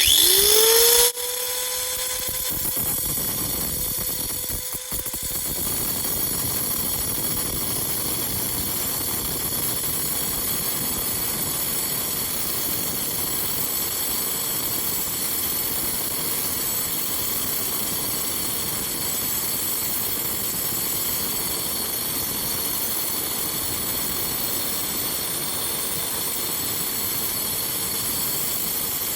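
Angle grinder switched on, its whine rising in pitch as the motor spins up, then running steadily as the blade cuts through a geode.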